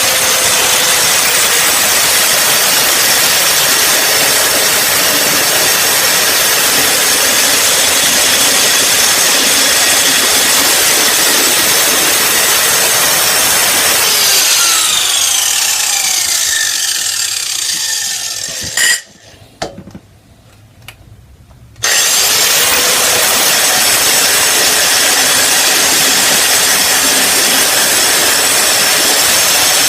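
Hyper Tough angle grinder grinding through a hardened grade 8 steel bolt, a loud steady high whine with grinding noise. About fourteen seconds in the trigger is released and the whine falls in pitch as the disc spins down, then a couple of clicks and a few seconds of quiet. It is switched on again, the whine rising as the disc spins up, and the cutting resumes.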